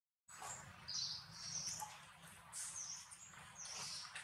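Baby macaque squeaking: a run of about five short, high-pitched squeaks, some falling in pitch, over low background noise. The sound cuts out for a moment at the very start.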